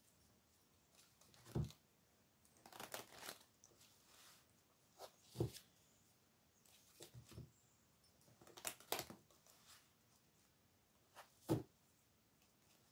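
Tarot cards being shuffled by hand, heard as short papery rustles a few seconds apart, with about four soft low knocks between them.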